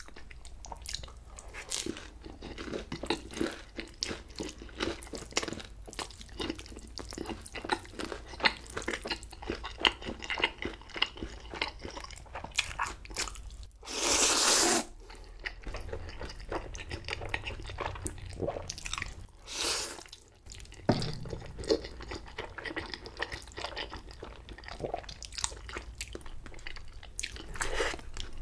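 Close-miked chewing of fried sweet and sour pork and black-bean-sauce noodles, with many small wet mouth clicks. A loud slurp of noodles comes about halfway through, and a shorter one a few seconds later.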